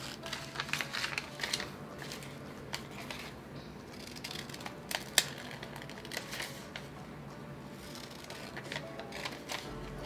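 Scissors snipping through a stiff brown paper sewing pattern, in several short bursts of crisp cuts with paper rustling, the sharpest snip about five seconds in.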